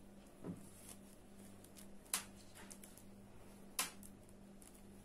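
A crochet hook and knitting needles clicking faintly three times while stitches are bound off, over a low steady hum.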